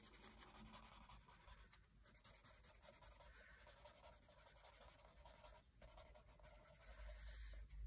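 Faint rubbing and scratching of a paper blending stump on charcoal drawing paper, smudging charcoal to blend the shading.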